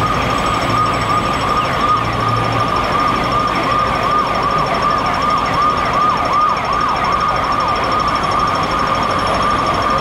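An emergency vehicle siren sounding a fast, repeated rise-and-fall wail over a steady high tone, loudest in the middle. Beneath it is a constant rumble of running engines.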